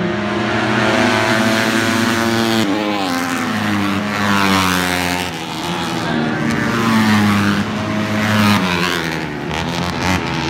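A pack of dirt-track racing motorcycles at race speed, several engines running hard at once. Their pitch slides down and up as the riders pass and go through the turn.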